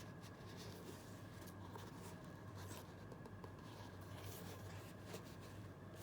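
Faint scratchy rustling and light handling noises from new football boots and their packaging being unboxed and handled, over a steady low hum.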